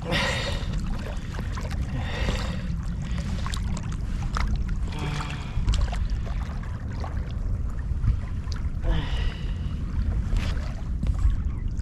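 Wind rumbling on the microphone by the water, with a few brief splashy hisses of water.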